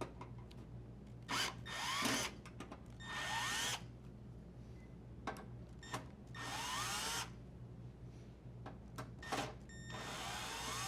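Drill driver with a square-head bit unthreading screws from a dryer door panel, running in about six short bursts with its motor pitch rising as each starts, and light clicks in between.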